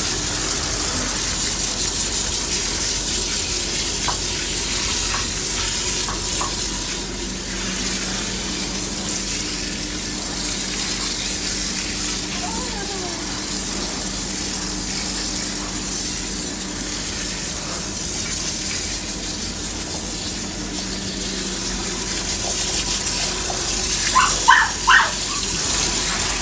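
Water spraying steadily from a hand-held hose onto a cat's coat in a stainless-steel grooming tub, a continuous hiss, over a faint low steady hum. A few short higher-pitched sounds come near the end.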